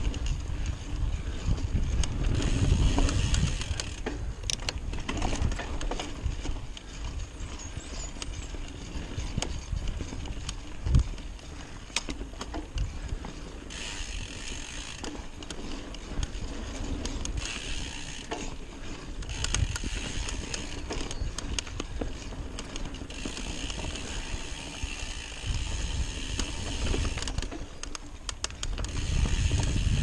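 Trek Fuel EX mountain bike riding dirt single track: the rear hub's freewheel ratchet buzzes in stretches while coasting, over a low rumble of tyres and wind, with small rattles from the bike and one sharp knock about eleven seconds in.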